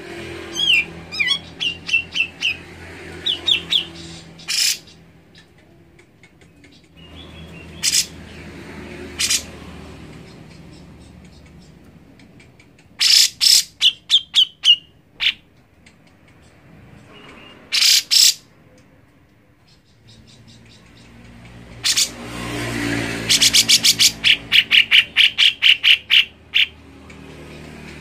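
Grey-cheeked bulbul (cucak jenggot) calling and singing: loud, sharp chirping phrases a few seconds apart, ending in a fast run of repeated notes, about four or five a second.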